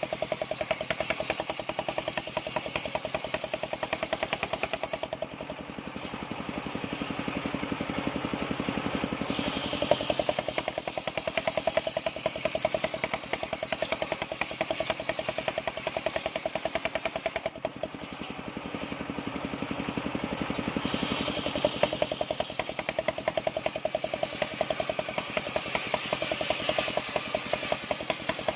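Engine-driven circular saw bench ripping a waru (sea hibiscus) timber, the engine running steadily with a rapid even pulse under the blade's cutting noise, which grows louder and eases off a few times as the cut goes on.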